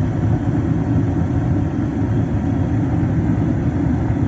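Comfortmaker gas furnace running during start-up, its inducer (booster) motor going: a loud, steady low rumble.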